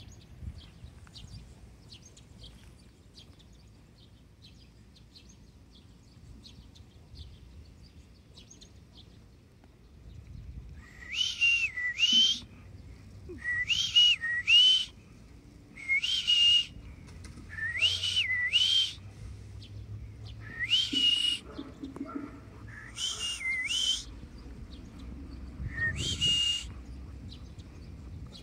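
A loud two-part whistled call, each note sliding up in pitch, repeated seven times about every two seconds. Faint high chirps come before it.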